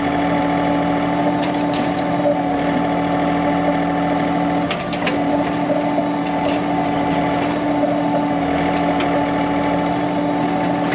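John Deere 3039R compact tractor's diesel engine running steadily at a fixed speed while it works the 385A backhoe, with scattered clicks and knocks on top.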